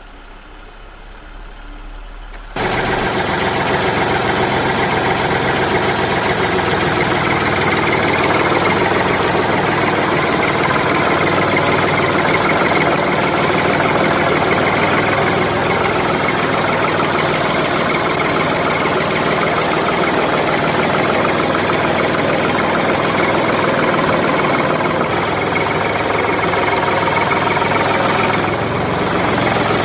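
Small tractor engine running steadily. It cuts in suddenly at full strength about two and a half seconds in, after a quiet start.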